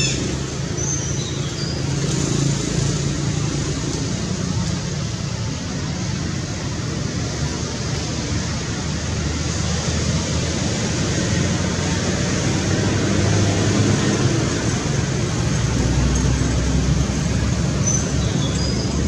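Steady outdoor background rumble and hiss with a low hum, and a few short high chirps about a second in and again near the end.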